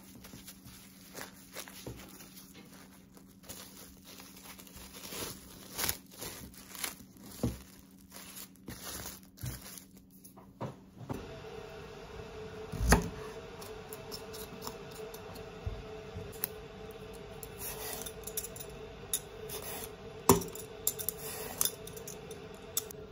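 Plastic wrap crinkling and rustling as hands shape a rice ball inside it, in scattered small clicks. About halfway through, a knife strikes a wooden cutting board once, loudly, while an eggplant is being cut, and near the end a vegetable peeler scrapes along the eggplant's skin with quick clicks and another sharp knock.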